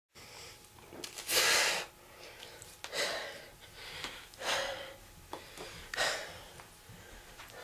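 A man breathing hard close to the microphone: four loud breaths about a second and a half apart, the first the loudest.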